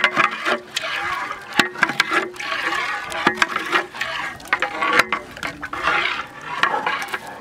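A long metal rod stirring a thick beaten-egg mixture in a large aluminium pot: the liquid sloshes, and the rod knocks and scrapes against the pot again and again.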